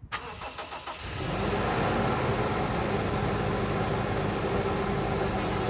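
Tap water running into a camper van's sink, with a steady low motor hum, starting about a second in.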